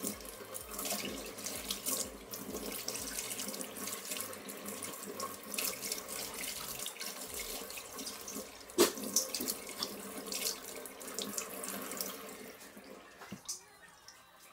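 Kitchen tap running into a sink while a rubber jelly scrubber curry comb is rinsed under the stream, with water splashing off the comb and the hands. There is one sharp knock about nine seconds in, and the running water stops near the end.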